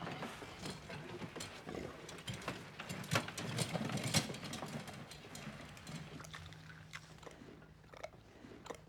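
A pig moving about: an irregular string of clicks and knocks, busiest over the first few seconds. A low steady hum comes in about six seconds in.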